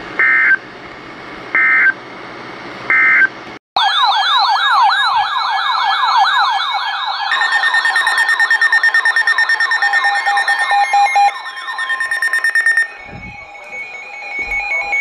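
Three short bursts of EAS end-of-message data tones from a NOAA weather radio, each about a second and a half apart, marking the end of the broadcast alert. After a brief cut, a weather alert radio's electronic siren yelps rapidly up and down. A steady high tone and fast beeping from the alert receivers join it, and pulsed beeping continues near the end.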